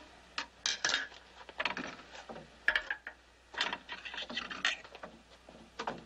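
Rubbing, scraping and light clinks of toiletry items and a towel being handled at a washstand, a dozen or so short separate sounds.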